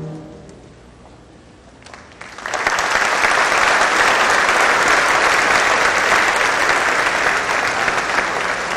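A wind band's last note dies away, and after a short hush audience applause starts about two and a half seconds in and carries on steadily.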